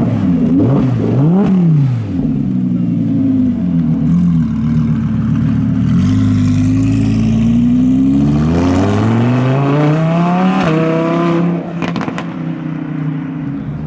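A car engine revving: a few quick blips about a second in, a steadier stretch, then a long pull rising in pitch over about three seconds that drops off sharply. The car is accelerating away.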